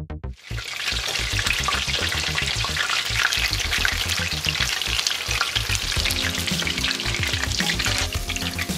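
Breaded chicken strips deep-frying in canola oil in a cast-iron skillet: a dense, crackling sizzle that sets in about half a second in. A music beat runs underneath.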